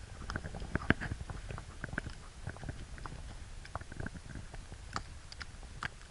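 Falling wet snow ticking on a Sony HDR-AS15 action cam's waterproof housing: irregular small ticks and crackles over a low rumble.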